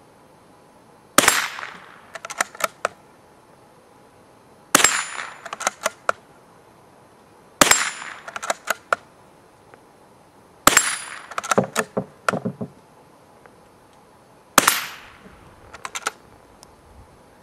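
Five shots from a Stevens Model 56C bolt-action .22 LR rifle, three to four seconds apart, each a really soft report, almost like a pellet gun, followed by a quick run of metallic clicks as the bolt is worked.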